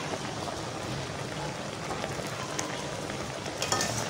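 Pot of water at a rolling boil, bubbling steadily, with a couple of light clinks of a metal spoon against the pot as softened raw mango pieces are scooped out.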